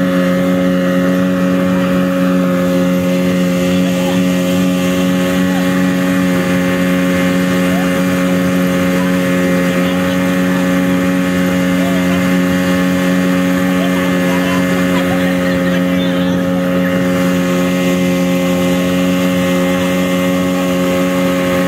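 Outboard motor of an inflatable speedboat running steadily at cruising speed, a constant drone that holds one pitch throughout.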